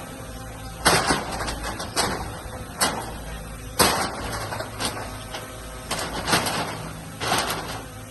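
Heavy earthmoving machinery at work: a diesel engine running steadily under sharp clanks and bangs that come irregularly, about once a second.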